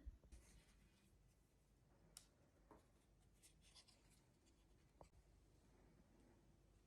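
Near silence, with a few faint, light ticks and scratches scattered through it.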